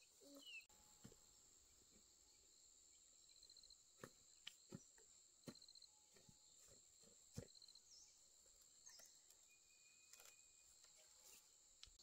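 Faint, steady high-pitched chorus of insects, with about five light clicks or knocks a third to two thirds of the way through.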